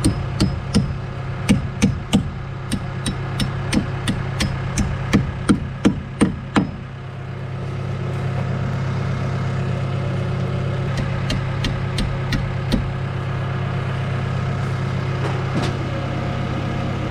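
A hammer striking wood, about fifteen uneven blows over the first six seconds, over the steady drone of a boom lift's idling engine. From about eight seconds in, the lift's engine runs a little louder as the basket is driven, with a few light clicks.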